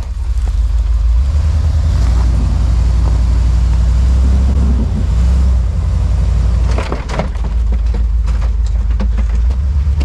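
A pickup plow truck's engine running low and steady as the truck backs slowly down a snow-covered road with a damaged drivetrain. A few short crunches come about seven seconds in.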